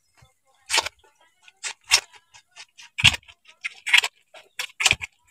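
A goat kid sucking milk from a feeding bottle's teat: a run of short, irregular smacking clicks, several a second, starting about a second in.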